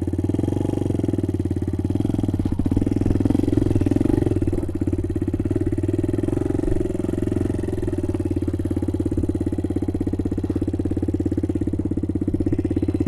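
Small motorbike engine idling steadily close to the microphone, its exhaust pulses even, with a slight rise in level a few seconds in.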